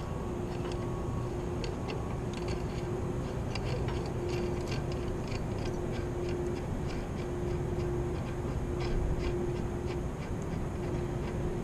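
Steady low rumble, like wind on the microphone, with many light metallic ticks as a nut is turned by hand on a threaded rod of an antenna mounting bracket. A mid-pitched hum keeps breaking off and coming back about once a second.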